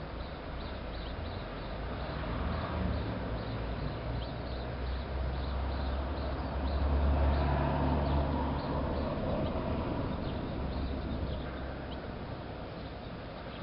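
Small birds chirping in short, high, repeated calls. Under them a low rumble builds, is loudest around the middle, then fades away.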